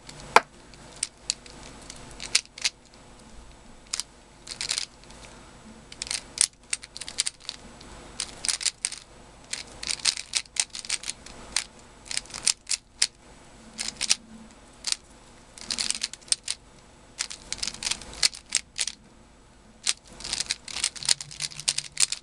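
Layers of a plastic 3x3 speedcube, a Magic Friends cube, being turned by hand in quick bursts: rapid clicking and clacking of the plastic pieces, with short pauses between bursts.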